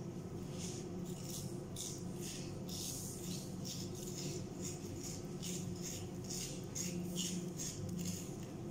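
A knife cutting through raw peeled potatoes, a quick run of short scraping, crunching strokes about two or three a second, over a steady low hum.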